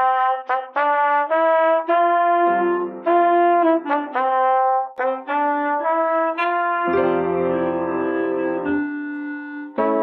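Clarinet and brass instrument playing a duet of a Christmas carol, a melody of distinct held notes, with lower notes joining from about two and a half seconds in.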